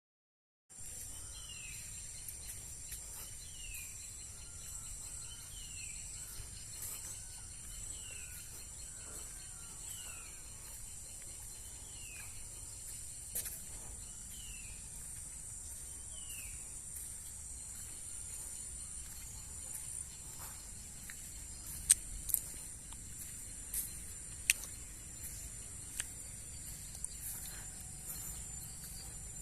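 A steady, high-pitched chorus of insects, with a short falling call repeated about once a second through the first half. Several sharp clicks come in the second half.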